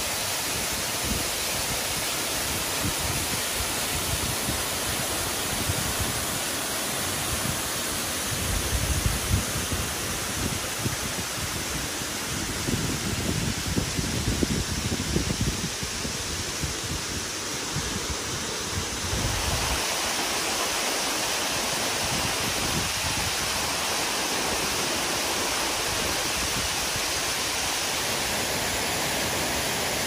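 A mountain waterfall's steady rush of water falling over rock. Low, gusty rumbles come and go, and the sound shifts a little about two-thirds of the way through.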